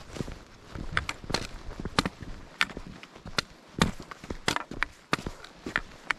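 A hiker's footsteps on a trail: sharp, unevenly spaced steps at about two a second.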